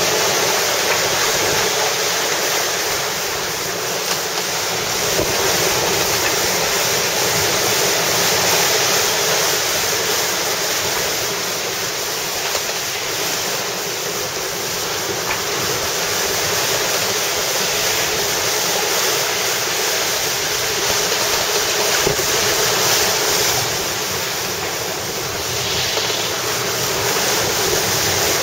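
Steady rush of wind and sea water around a sailboat under way offshore, with wind buffeting the microphone. The noise swells and eases slowly every several seconds.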